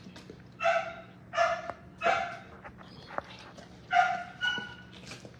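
A dog barking five times: three short barks in steady succession, then a pause and two more.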